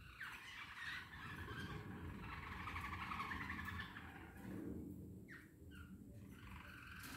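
Small pet cage birds chirping and warbling in a rapid, continuous run of trills and short chirps, over a steady low rumble.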